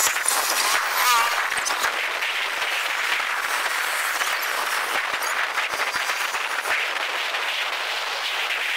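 Scattered applause from people along the route, a steady patter of clapping.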